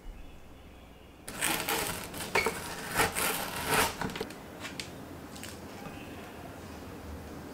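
Large kitchen knife cutting down through a frozen yogurt bar and its crunchy nut-and-oat granola base: a dense crackling crunch that starts a little over a second in and lasts about three seconds, followed by a few scattered clicks.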